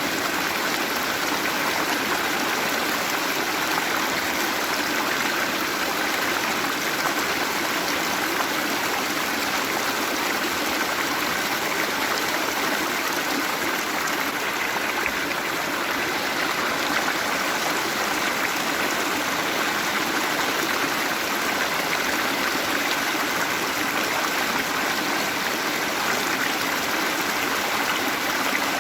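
Waterfall: water falling and splashing in a steady, unbroken rush with an even hiss.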